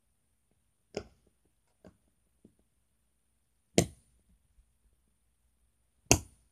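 Hands pressing and pinching Play-Doh on a hard white plastic surface: a few faint taps, then two sharp knocks about two seconds apart, the last the loudest.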